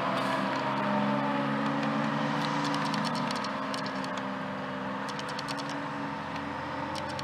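A fire engine's motor runs steadily and drops off about three seconds in. Over it, a higher whine slowly falls in pitch.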